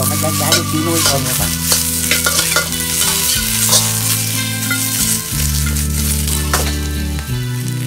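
Sliced onions, yellow bell pepper and green onion sizzling in a hot wok over a gas flame, with a spatula scraping and tossing them against the metal: stir-frying.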